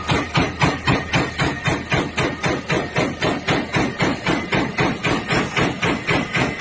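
Heat-exchanger fin press running at speed, stamping long fins in a steady rhythm of sharp mechanical knocks, about four strokes a second.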